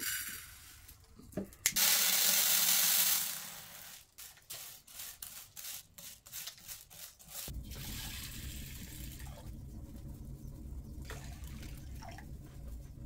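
Dry rice poured from a plastic tray into a metal bowl: a loud, even hiss lasting about a second and a half. Then scattered small clicks as dried split peas are sorted by hand on the tray, and about halfway through a low steady rumble sets in.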